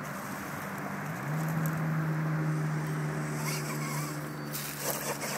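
Electric drive motor and gears of an Axial XR10 RC rock crawler whining steadily. About a second in, the whine steps down in pitch and gets louder, then holds. A few light knocks come near the end.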